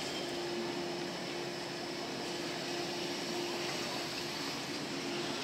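JR 185 series electric train pulling slowly out of the station: a steady hum over an even rumbling noise.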